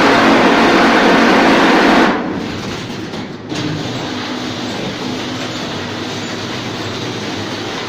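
Automatic wall plastering machine running with a steady mechanical drone. It is louder at first and drops sharply about two seconds in, then runs on at a lower, even level.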